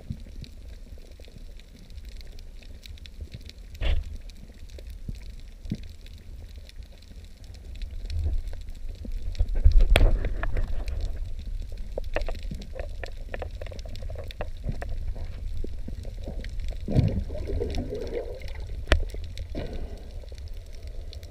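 Muffled underwater sound picked up by a camera in its waterproof housing: a steady low rumble of moving water with scattered clicks and knocks, busiest and loudest around ten seconds in.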